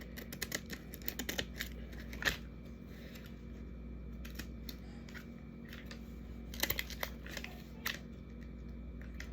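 Scattered light clicks and taps of small toys, stickers and plastic packaging being handled while filling goodie bags, coming in small clusters near the start, a little after two seconds, and again about two-thirds of the way through, over a faint steady room hum.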